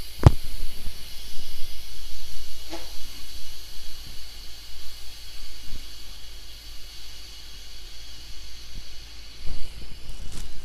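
Instant Pot electric pressure cooker's steam-release valve hissing steadily as the last of the pressure vents in a manual quick release, with two sharp clicks right at the start.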